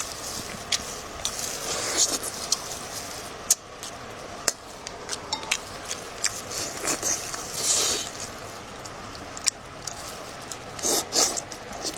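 Close-miked eating sounds: chewing with frequent sharp clicks and wet smacks, and a few longer noisy swells.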